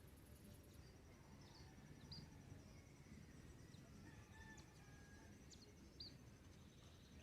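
Faint dawn ambience: a few short, scattered bird chirps over a steady high insect trill and a low background rumble.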